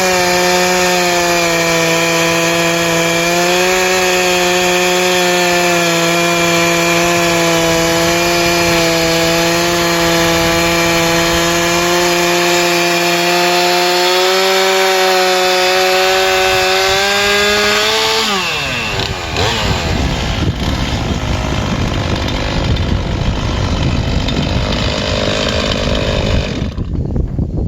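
Stihl MS311 two-stroke chainsaw running at full throttle under load while ripping a slab in an Alaskan chainsaw mill, its note steady for most of the cut. About 18 seconds in the pitch falls quickly as the throttle is released at the end of the cut, and the saw runs on at a rough idle.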